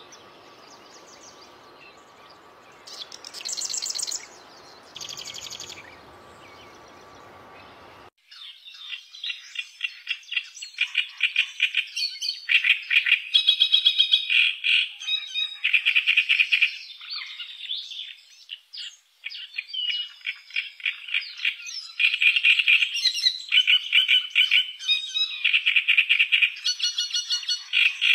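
Wild animal calls. First come two short, high bird trills over a steady hiss. Then, after a cut about 8 seconds in, a louder chorus of rapid pulsed calls comes in overlapping bursts.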